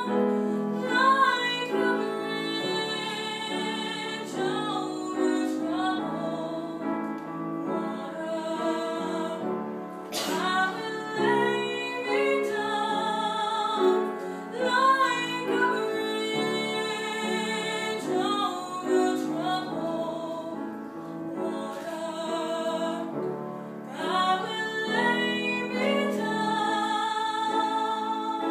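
A woman singing live in operatic style, holding long notes with a wide vibrato.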